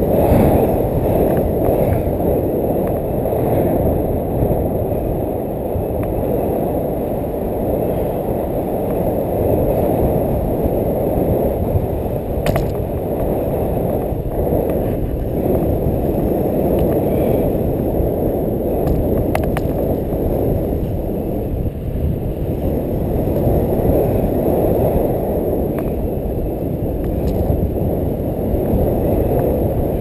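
Wind rushing over the camera microphone during a tandem paraglider flight: a steady, loud, low rumbling buffet from the airflow.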